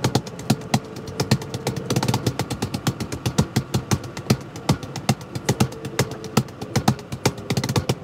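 Hands drumming a fast, steady rhythm on the back of a car's front seat: sharp slaps and thuds several times a second. A car engine hums underneath.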